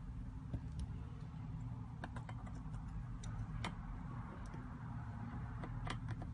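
Scattered light clicks and taps, irregular and spaced unevenly, over a steady low hum.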